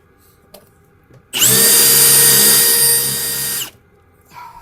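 Power drill with a step bit running for about two seconds, boring through a plastic panel; the bit is mostly melting its way through the plastic rather than cutting. The motor whine rises as it spins up about a second in and drops as it stops.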